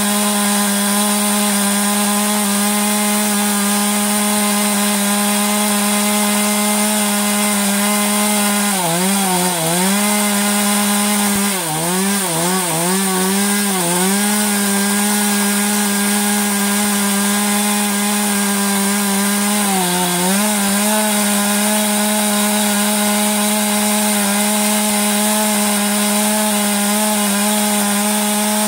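STIHL MS 192 TC-E top-handle chainsaw's two-stroke engine running at high revs while its chain cuts a pine burl spinning on a lathe. The revs dip several times about a third of the way in and once more briefly past the middle as the chain bites into the wood.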